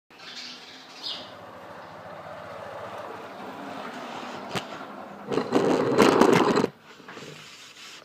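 A couple of short, faint sparrow chirps near the start, over a low background hum. About five seconds in comes a loud burst of rushing noise lasting about a second and a half, the loudest sound here, which cuts off sharply.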